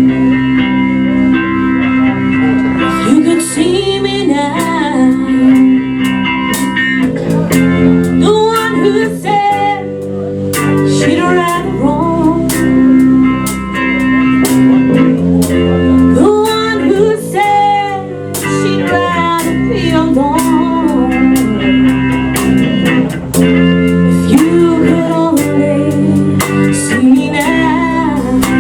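Live band playing a blues-rock song: guitar chords, bass and drum kit, with a melody line bending over the top.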